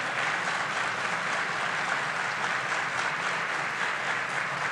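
Members of parliament applauding steadily, an even, sustained clapping with no let-up.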